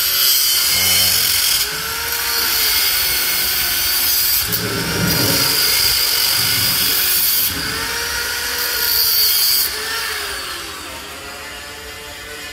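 Electric arc welding on a bus exhaust pipe: a loud, dense crackling hiss that stops and starts in several stretches of a few seconds each, with a faint hum rising and falling in pitch underneath.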